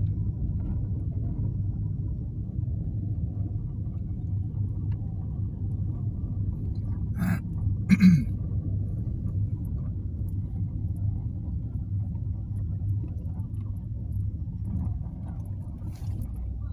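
Steady low rumble of a car driving slowly, heard inside the cabin. Two short knocks come a little after halfway, the second the louder.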